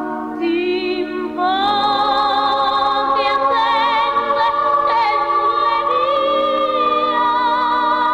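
Vocal music: singing in long held notes with vibrato, with a higher voice coming in about a second and a half in.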